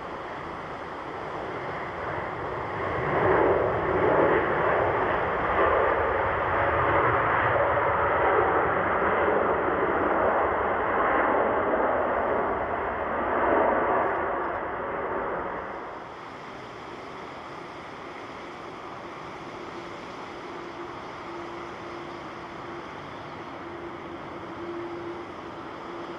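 A jet airliner passes close by with a loud jet rush that builds a couple of seconds in and stays strong for about twelve seconds. It breaks off abruptly about sixteen seconds in, leaving a quieter steady background rush with a faint hum.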